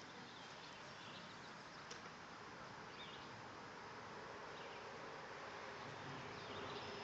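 Faint steady outdoor background hiss, with a few faint high chirps scattered through it.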